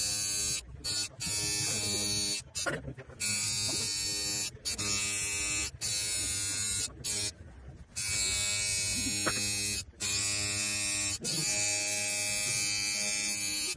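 Electric tattoo machine buzzing steadily as it drives the needle. It cuts out briefly every second or two and starts again.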